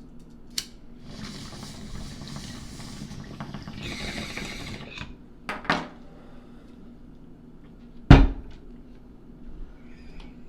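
Household handling noises: a click, a few seconds of hissing, two sharp knocks, then a heavy low thump about eight seconds in, the loudest sound.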